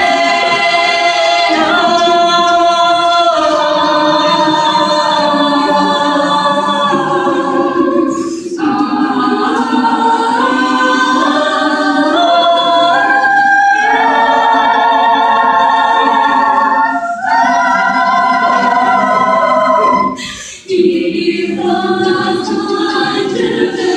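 A cappella vocal group singing sustained chords in harmony without instruments. The chords change every couple of seconds, with brief breaks between phrases.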